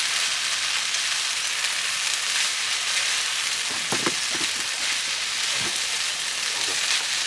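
Food sizzling steadily in a pan over a campfire, an even hiss with a few faint knocks about four seconds in.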